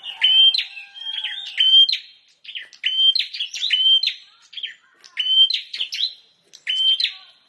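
Prinia (prenjak) singing vigorously: repeated short phrases of sharp, loud chirping notes, about seven phrases with brief pauses between them.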